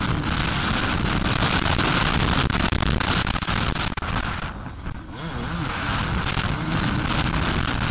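Suzuki RM250 two-stroke motocross engine running hard under throttle, heard through heavy wind buffeting on the onboard camera's microphone. About four to five seconds in the sound eases off briefly, then the engine note climbs again.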